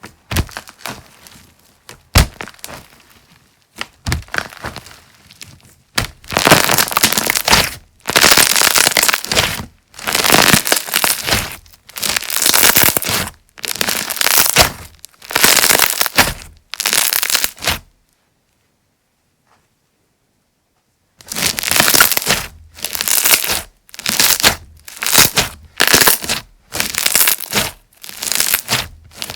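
Slime being squeezed and pressed by hand, giving crackly, crunchy popping. A few sharp clicks come first, then presses about every two seconds; after a brief silent gap a little past halfway, the presses come quicker.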